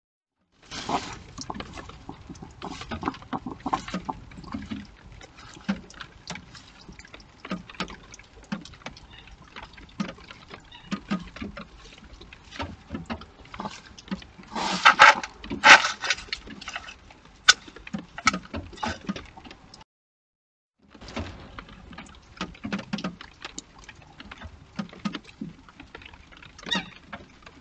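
Two European hedgehogs scuffling in dry hay and grass: irregular rustling and crackling with short clicks, and a louder burst of scuffling about halfway through. The sound cuts out for about a second two-thirds of the way in.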